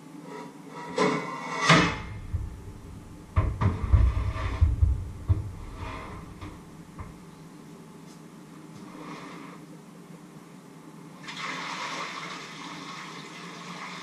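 Pots and dishes clattering and knocking at a kitchen sink, with several heavy thuds a few seconds in. About eleven seconds in, tap water starts running steadily.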